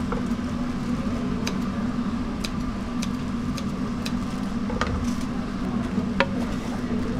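Sharp taps of a knife cutting sundae on a wooden cutting board, about eight irregular strikes with the loudest two near the end, over a steady low hum.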